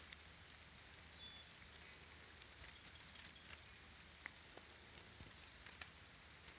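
Faint light rain falling, with scattered small drops ticking, and a few short, high chirps in the middle.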